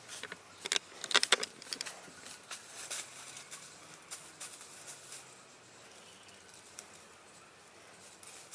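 Dry branches and dead leaves crackling and snapping as a fallen dry branch is pulled through brush, loudest in a quick cluster about a second in, then scattered rustles that die down after about five seconds.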